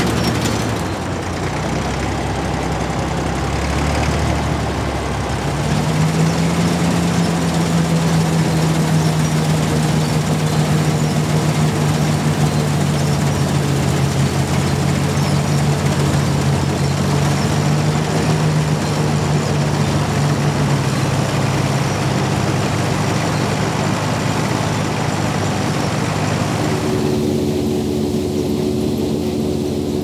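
Fordson Super Dexta's three-cylinder diesel engine running steadily under load while driving a side-mounted JF MS5 combine harvesting wheat, the combine's threshing machinery turning along with it. The engine note shifts about six seconds in and again near the end.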